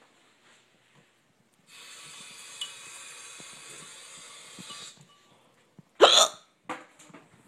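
A person hiccuping: one loud, sharp hiccup about six seconds in, followed by a fainter one just after. Before it comes a steady hiss lasting about three seconds.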